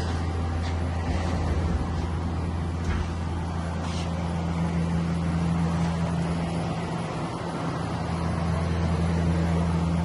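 Steady low machine hum from running shop machinery, with a few faint clicks.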